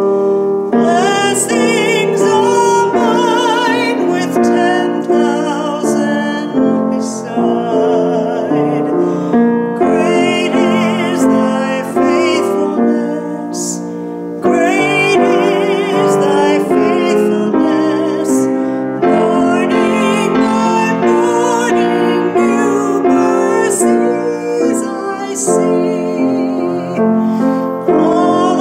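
A woman singing with vibrato while playing the piano.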